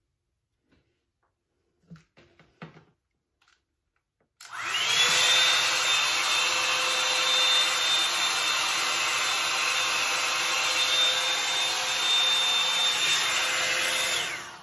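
Bed Head Blow Out Freak hot-air volume brush switched on about four seconds in: its fan motor spins up with a rising whine into a loud, steady rush of air and a high whine, then is switched off shortly before the end and winds down. A few faint clicks and rustles come before it starts.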